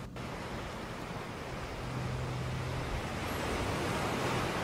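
Steady rushing wind noise on the microphone, growing slightly louder, with a low hum that comes and goes.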